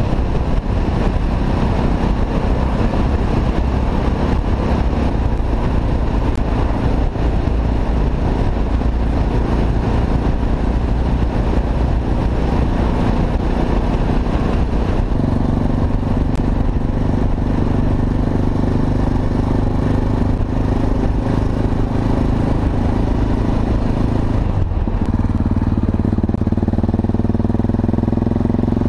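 Yamaha XT 660 X single-cylinder four-stroke engine running under way, with heavy wind noise on the microphone at speed. About halfway through, the wind noise drops and the engine note comes through more clearly. There is a short break near the end, and then the engine note rises again.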